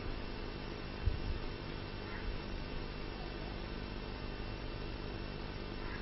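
Steady electrical mains hum and hiss from the microphone and sound system, with a single low thump about a second in.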